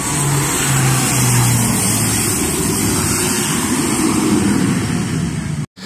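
Engine noise from a landing airplane on the runway: a loud, steady rush with a low hum that falls slightly in pitch over the first couple of seconds, cutting off suddenly near the end.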